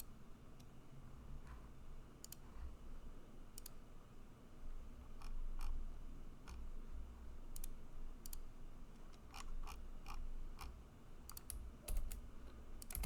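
Scattered clicks of a computer mouse and keyboard, about a dozen irregularly spaced, some in quick pairs, over a low steady hum.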